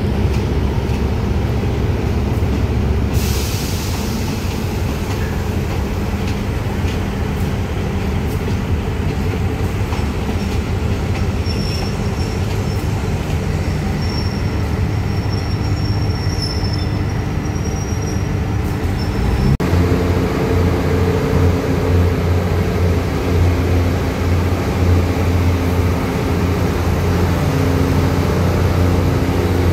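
Diesel railcar trains' engines running at idle with a steady low hum. A burst of hiss comes about three seconds in, and a little past halfway the sound changes abruptly to a stronger, deeper engine hum.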